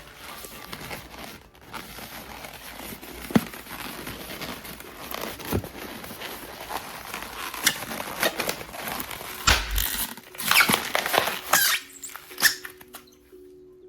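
Cartoon-style pooping sound effect: a long run of crackling, sputtering noise. It builds to a heavy low thump and a cluster of louder bursts about ten seconds in, then dies away near the end.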